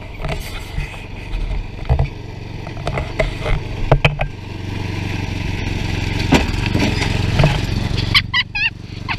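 Small off-road vehicle engine running steadily, getting louder from about five seconds in, with a few sharp knocks.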